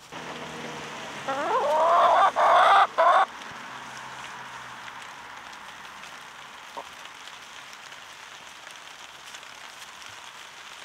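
A hen calls loudly for about two seconds a little over a second in: squawks that rise in pitch. A steady faint hiss follows.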